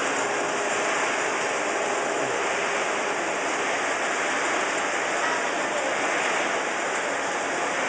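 Steady, even hissing noise of snack-pellet processing machinery running, with no distinct knocks or rhythm.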